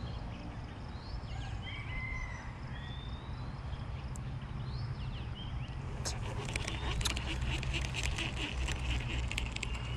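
Small birds chirping over a steady low outdoor rumble. From about six seconds in, a rapid run of sharp clicks as a Shimano Calcutta Conquest baitcasting reel is handled and reeled.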